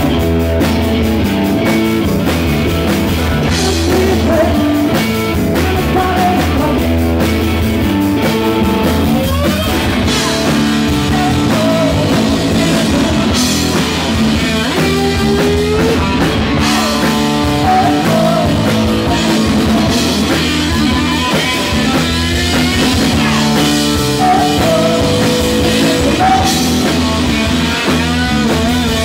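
Rock band playing loudly live: electric guitar, bass guitar and drum kit.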